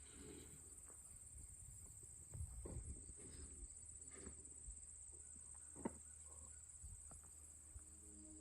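Near silence: a faint, steady high-pitched hiss, with a few soft knocks and one small click about six seconds in.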